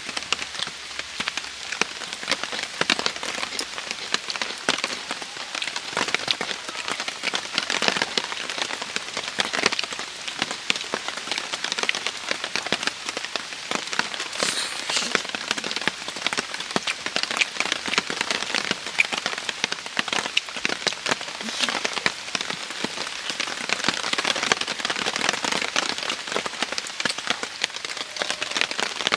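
Heavy rain falling steadily on a tarp shelter overhead, a dense patter of individual drops over a continuous hiss.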